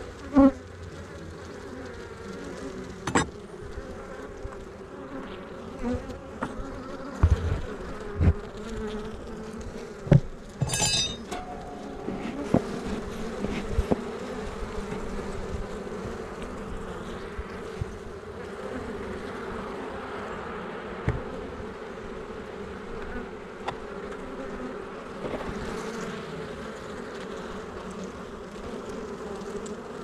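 Honey bees buzzing in a steady hum on a brood frame held close. Several sharp knocks and a brief scrape in the first half, from the wooden frame and hive tool being handled.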